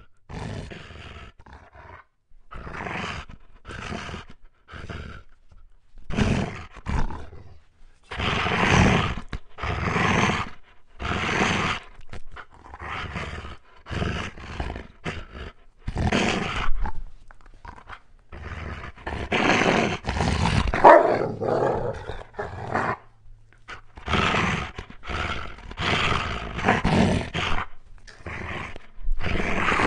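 Wolf growling and snarling in a long series of harsh bursts, each from a fraction of a second to about a second long, with short pauses between them.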